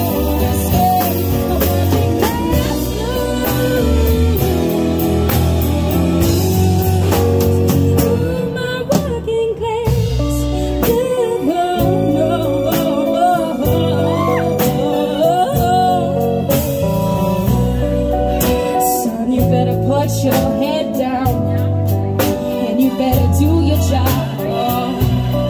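Live band playing: acoustic and electric guitars, electric bass, keyboard and drum kit, with a woman singing lead.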